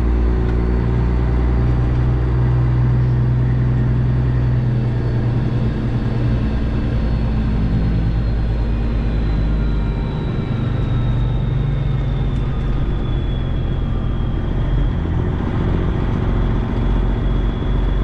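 Freightliner Classic XL semi truck's Detroit Diesel 12.7 engine running steadily, its pitch shifting a little about four seconds in and again about ten seconds in. A thin high whine slowly falls underneath it.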